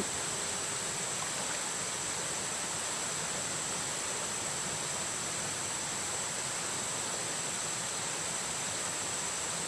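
Steady high-pitched drone of forest insects over an even background hiss, unchanging throughout.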